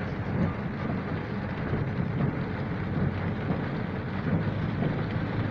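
Steady rain noise with a low rumble underneath.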